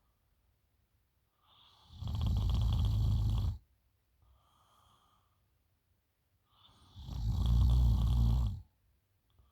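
A sleeping woman snoring: two long, loud snores about five seconds apart, each lasting about two seconds, with a faint breath between them.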